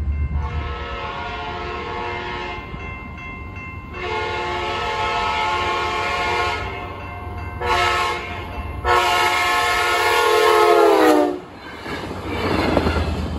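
Trinity Railway Express commuter train's horn chord sounding the grade-crossing signal: two long blasts, a short one and a final long one whose pitch drops as the train passes. The rumble of the bilevel coaches rolling by follows.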